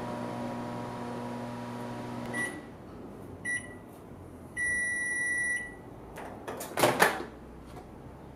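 A microwave oven runs with a steady hum that stops about two and a half seconds in as the cycle ends. It gives two short beeps and then one longer beep of about a second. A few clicks follow as the door is released and swung open, and the sharp pop of the latch near seven seconds is the loudest sound.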